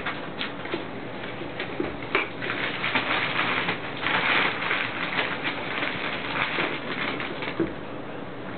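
Two ferrets scuffling on a wooden floor among sneakers: claws clicking and scratching on the boards, with a thicker run of scrabbling and rustling through the middle.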